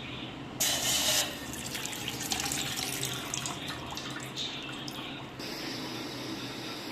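Water running into a cooking pot, loudest in a splash about half a second in, then an even stream with small splashes; near the end a steady hiss takes over.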